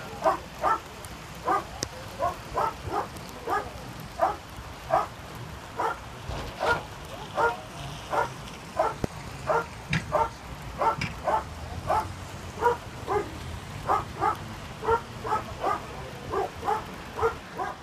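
A dog barking over and over, short sharp barks at about two a second with no let-up.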